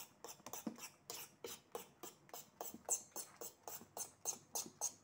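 A metal spoon stirring thick banana pancake batter and flour in a bowl: faint, short scraping strokes, about four a second.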